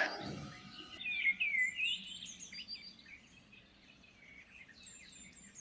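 Small songbirds chirping and twittering: many short, high notes, busiest in the first two seconds and sparser later.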